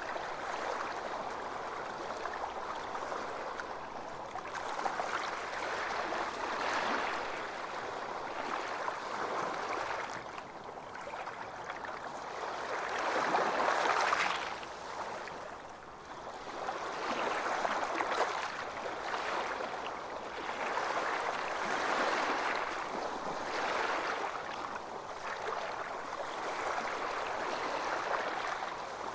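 Ocean surf washing onto a beach: a steady hiss of water that swells and falls back every few seconds, with the biggest wave breaking about halfway through.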